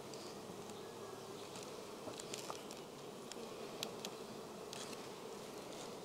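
Honey bees humming steadily on a brood frame held up from an open hive, an even low drone with a few faint ticks.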